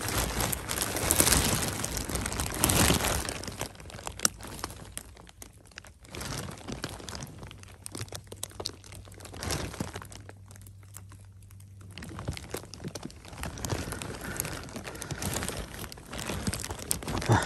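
Crinkling rustle of a plastic raincoat sleeve with crackling of pine needles and forest litter as a hand works around the base of a mushroom. The rustling is loudest over the first few seconds, dies down in the middle and picks up again near the end.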